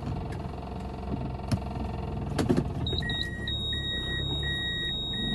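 Vehicle running along a gravel road, a steady low rumble with a few sharp knocks about halfway through. About three seconds in, an electronic warning beep starts repeating evenly, a little faster than once a second.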